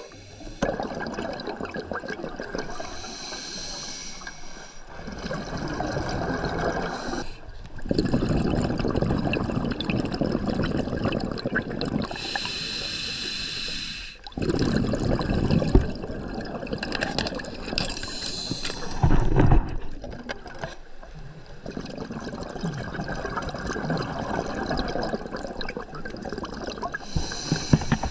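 Scuba diver breathing through a regulator underwater: a hiss on each inhale and a long bubbling rush of exhaust bubbles on each exhale, about four breaths.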